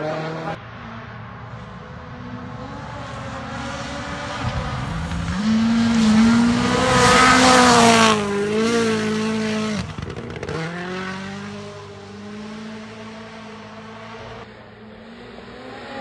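Rally car engines at full throttle on a stage pass, in several spliced shots: a 1.6-litre turbocharged four-cylinder Hyundai i20 N rally car builds to its loudest as it passes about halfway through, its pitch stepping with upshifts. The sound cuts off suddenly, and another car's engine rises and fades.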